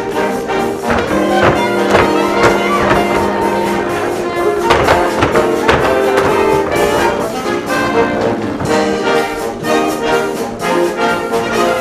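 Lively brass-led instrumental show music with a steady beat, from the musical's dance number.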